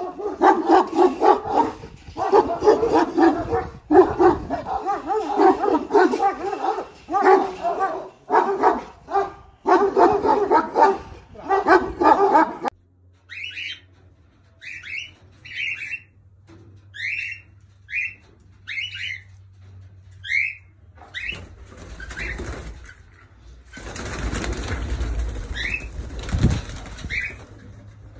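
Dogs barking excitedly, several barks a second. Then, with a sudden change, a bird gives short rising chirps about once a second over a low steady hum, and wings flap against aviary mesh near the end.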